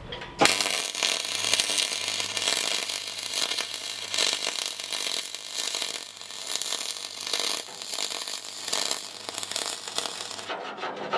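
MIG welder running a continuous aluminium weld bead: a steady crackling hiss of the arc that starts about half a second in and cuts off sharply near the end. The arc runs smoothly with the torch lead laid straight, so the aluminium wire feeds through the liner without binding, giving what is called the best weld it's done all day.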